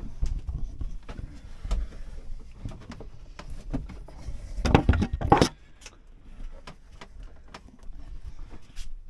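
Knocks, clicks and rustling of someone reaching into a cramped locker and moving things about, with a louder scraping, rustling burst about five seconds in.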